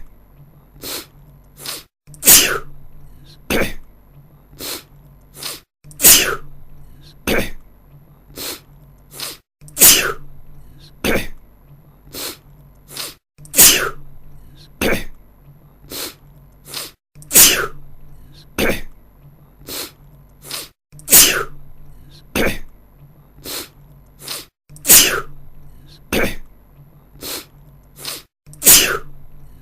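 A man sneezing over and over in a repeating loop. A loud sneeze comes about every four seconds, with a few quieter sounds between each one.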